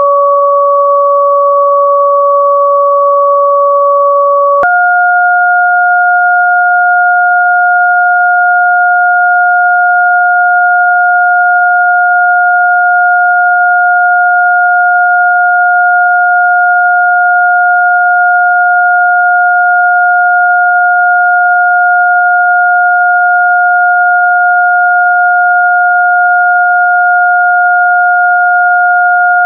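Electronically generated pure sine tones for a frequency-therapy track: two steady tones sound together, one about an octave above the other. About four and a half seconds in, both switch abruptly, with a slight click, to a slightly higher pair and hold steady.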